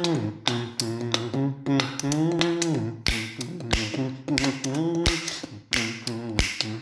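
Backing music of a wordless humming vocal melody in long, bending notes over rhythmic finger snaps and clicks.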